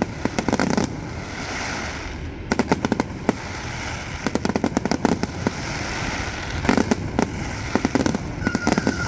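Fireworks display: repeated volleys of sharp crackling bangs in quick clusters every second or two. A steady high whistle begins near the end.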